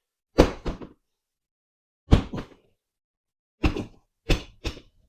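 Dull knocks: a motorcycle tire being tapped while it is worked onto the rim, several blows in small groups a second or two apart.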